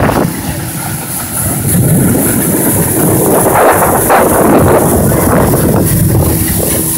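Motorboat under way at speed: a Yamaha 60 hp four-stroke outboard running steadily, with water rushing and splashing along the hull and wind buffeting the microphone.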